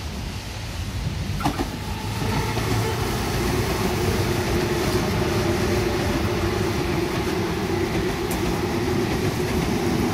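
Sydney Trains double-deck electric train running past close by: steady electric motor hum over wheel-on-rail rumble, growing louder about two seconds in.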